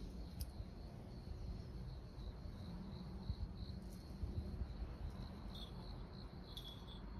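An insect, cricket-like, trilling steadily on one high, thin, slightly pulsing note, over a low rumble.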